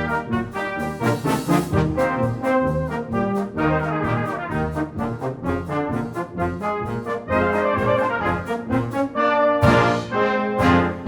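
Brass band playing a lively medley arrangement of Southern US popular songs, with full ensemble chords over a steady pulsing bass line. Two loud crashes ring out near the end.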